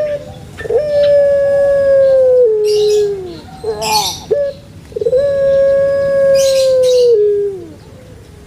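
Dove cooing: two long, clear coos, each held for about two seconds before stepping down in pitch and trailing off, with short high chirps from other birds between them.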